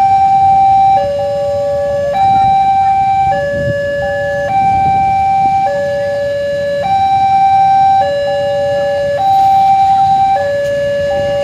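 Railway level-crossing warning alarm sounding a two-tone hi-lo signal, a higher and a lower tone alternating about once a second, warning that a train is approaching. Idling motorcycles and traffic rumble underneath.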